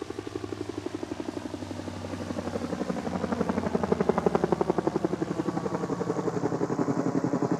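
Light two-bladed helicopter flying, its rotor beating in a fast, even chop that grows louder over the first few seconds and then holds steady.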